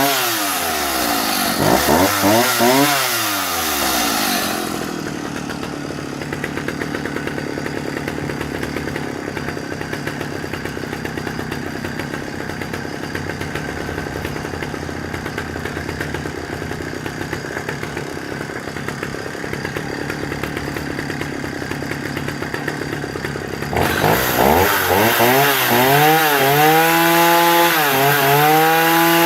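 Vintage Husqvarna 65 single-cylinder two-stroke chainsaw engine running: revved up and down twice, then idling evenly for about twenty seconds, then blipped up and down several times near the end.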